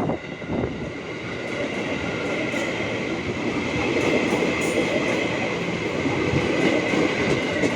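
JR 205 series electric commuter train passing close by: a steady rumble of wheels on rail with clickety-clack over the joints and a steady high-pitched whine, growing a little louder over the first few seconds.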